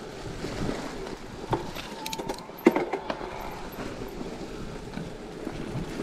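Electric mountain bike rolling down a forest trail: tyres rustling over dry fallen leaves and the bike rattling, with irregular knocks over bumps, the sharpest a little under three seconds in.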